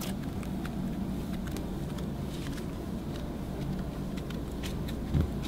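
Thick green slime being pressed and kneaded by hand, giving faint scattered clicks and crackles over a steady low hum, with one low thump about five seconds in.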